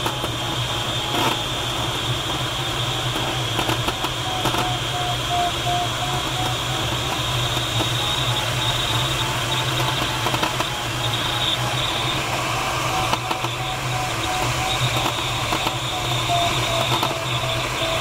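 Steady rush of airflow in a glider cockpit on aerotow, with a low steady hum underneath. Over it the electronic variometer beeps in short pulses, a couple a second, its pitch dipping about four seconds in, rising again, then falling near the end as the climb rate changes.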